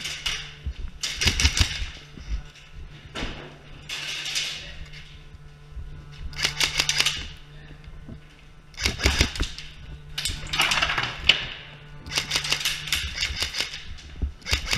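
Airsoft guns firing full-auto in about eight short bursts, each a rapid mechanical rattle of clicks lasting under a second or so.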